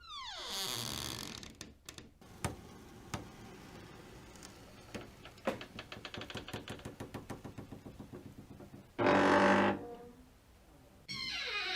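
Door sound effects in sequence. A falling sweep of tones opens it, then a few knocks. A slow hinge creak follows as a long train of ticks, about five or six a second, and then a loud, short rush of noise. Another falling sweep starts near the end.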